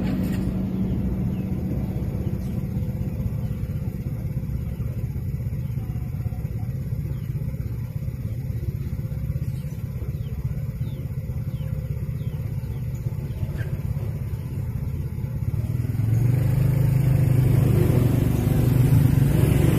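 A steady low rumble, then from about sixteen seconds in the louder low drone of motorcycle engines as motorbikes ride past at low speed.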